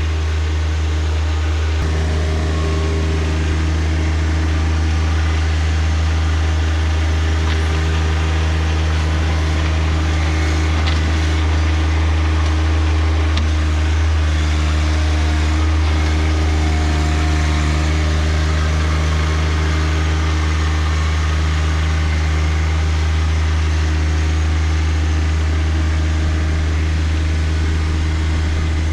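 John Deere 1025R compact tractor's three-cylinder diesel engine running steadily at constant speed.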